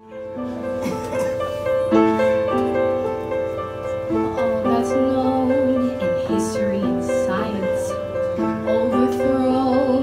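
Piano introduction to a musical-theatre song: held chords that change every second or two.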